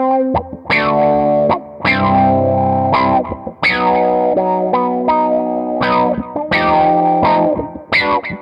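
Electric guitar played through a SolidGoldFX Supa Funk envelope bi-filter pedal: a run of strummed funk chords, some short stabs and some let ring.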